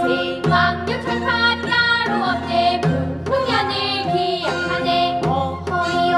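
A small group of children singing a Korean folk-style rice-paddy weeding work song, with instrumental accompaniment.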